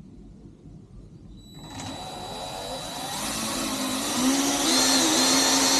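Handheld electric drill starting about a second and a half in, its motor speeding up with a rising whine and then running steadily at full speed as a small pilot bit starts a hole in a Razor swing arm tube.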